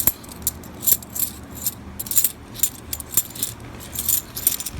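Half dollar coins clinking against each other as they are handled and sorted: an irregular string of short metallic clinks.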